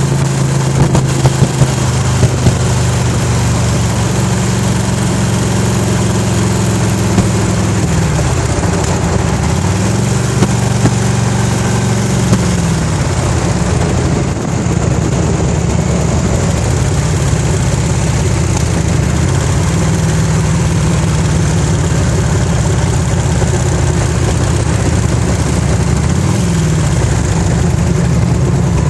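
1991 Harley-Davidson Electra Glide's air-cooled 1340 Evolution V-twin running with a ticking noise; the engine speed shifts down and up a few times. The owner finds the tick gets worse as the engine heats up and at higher rpm, and is unsure whether it is pinging (detonation), rod knock or valve noise.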